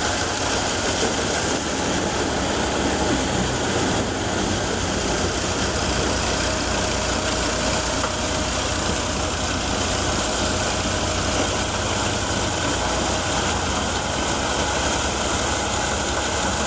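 Massey Ferguson 135 tractor engine running steadily under load, driving a small thresher that is threshing pearl millet.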